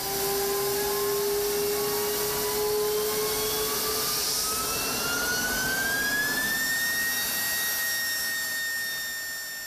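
Turbofan jet engine running on a test stand in a test cell: a steady roar with a high whine that climbs in pitch over the first seven seconds as the engine spools up, then holds steady.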